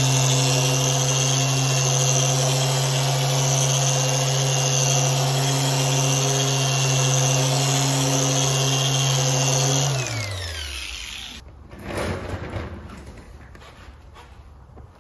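Griot's Garage 3-inch random orbital polisher running steadily at speed setting 5, its foam correcting pad working compound on painted bodywork. About ten seconds in it is switched off and winds down with a falling pitch, followed by a brief rub of a microfiber cloth wiped over the panel.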